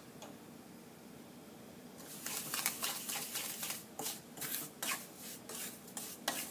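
Spatula scraping and stirring semolina roasting golden in ghee in a kadhai: quieter for the first two seconds, then a quick run of short scraping strokes, about three a second.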